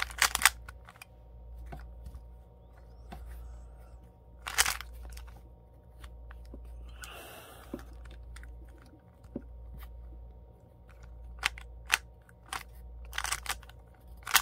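Plastic 3x3 puzzle cube being turned by hand: scattered clicks and clacks as its layers are twisted, bunching into a quicker run near the end, with a longer rustle of hands on the cube about seven seconds in. A steady low hum runs underneath.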